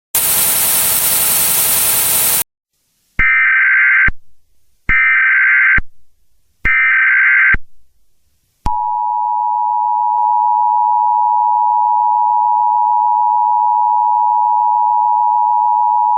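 Emergency Alert System tones: a burst of loud static lasting about two seconds, then three short warbling data bursts of the SAME header, each about a second long. About nine seconds in, the steady two-tone EAS attention signal begins and holds.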